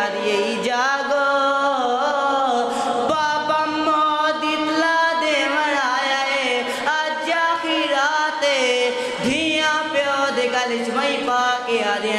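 A boy's voice chanting a mournful masaib recitation, the lament for the sufferings of the Prophet's family, in long held notes that rise and fall.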